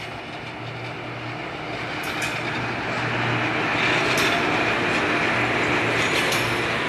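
Freight train hauled by an electric locomotive passing close by: a dense rumble of steel wheels on rail that grows louder over the first few seconds as the engine goes past, then holds as the wagons roll by. A low steady hum underlies it, and there are a few sharp clacks from the wheels.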